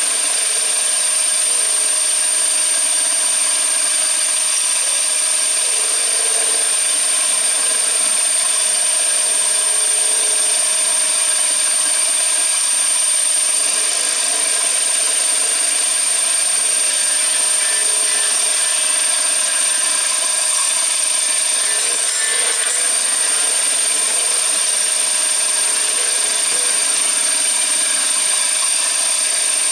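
CNC machine's spindle running steadily with a high-pitched whine, the tool working through material with a steady rushing noise.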